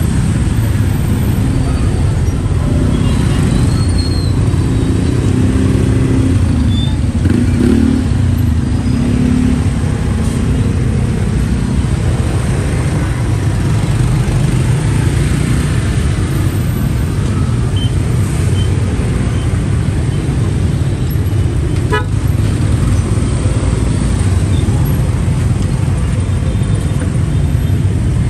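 Busy street traffic: a steady low rumble of motor vehicle engines, with a short horn toot a few seconds in.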